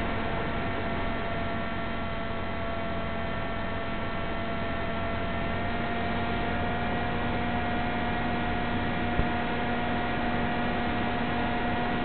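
Electric motor and propeller of an FPV aircraft running steadily under power with a droning whine over a hiss of airflow, its pitch edging up slightly about halfway through; a single short click about nine seconds in.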